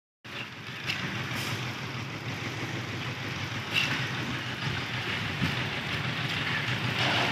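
An engine running steadily, with a low hum, under noisy work sound and a few short clicks and knocks. It cuts in suddenly just after the start.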